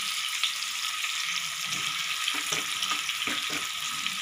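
Boiled taro cubes sizzling in hot oil with fried shallots and spice masala in a kadai, a steady frying hiss. A wooden spatula gives irregular soft knocks and scrapes against the pan from about a second in.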